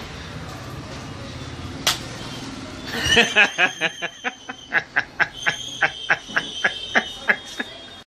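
A person laughing in short, rhythmic bursts, about three a second, starting about three seconds in, with a thin steady high tone alongside in the second half. A single sharp click comes just before the laughter.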